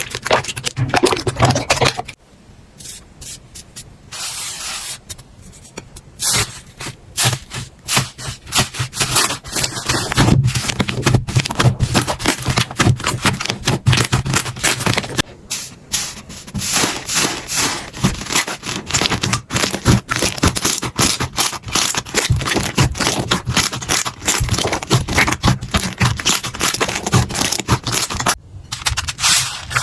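Hands squishing and pressing slime, making a dense run of small crackles and clicks; about two seconds in it drops quieter for a few seconds before picking up again.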